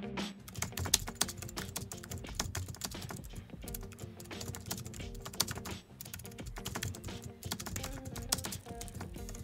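Rapid, irregular computer-keyboard typing clicks, running continuously over soft background music with held notes.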